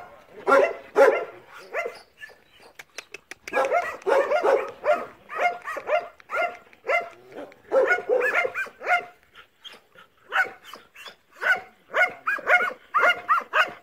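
Belgian Malinois barking in quick runs of short barks, about three a second, with brief pauses about two seconds in and again around ten seconds in.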